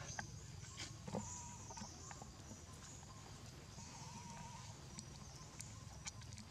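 Faint outdoor background: a low steady rumble and a high hiss, with a few soft clicks and two brief, faint high calls, about a second in and about four seconds in.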